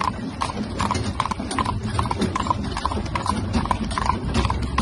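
Hooves of a pair of carriage horses clip-clopping on a paved road, a steady run of hoofbeats at about three a second.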